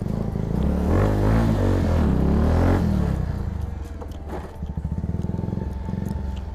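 Bajaj Pulsar 220's single-cylinder engine revving up hard for a couple of seconds, then falling back as the throttle is eased, and running on more quietly.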